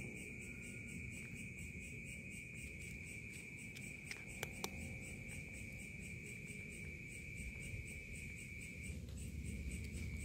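Night insects, such as crickets, trilling steadily: a continuous high-pitched drone with a fast, even pulse. A couple of sharp clicks sound a little past four seconds in.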